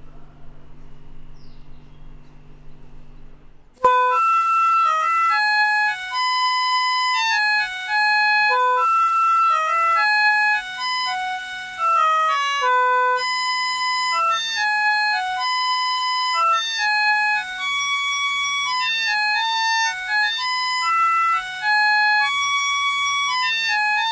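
Harmonica playing a melody of single held notes, starting abruptly about four seconds in after a faint room hum.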